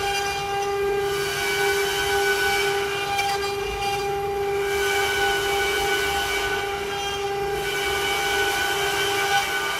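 CNC wood-carving router running: the spindle gives a steady high whine, over a rushing cutting noise that thins out and returns a couple of times as the cutter works the wood.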